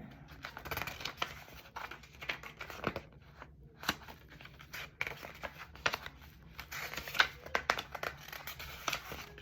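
Pages of a book being flipped and rustled, with irregular sharp page flicks.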